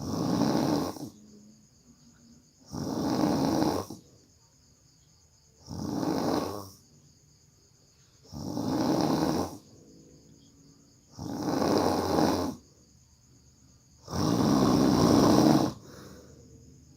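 A person snoring heavily: six loud snores in a steady rhythm, about one every three seconds, with quiet between them. The last snore is the longest.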